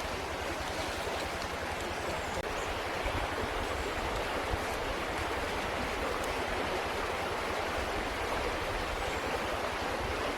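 A steady, even rushing noise, like running water.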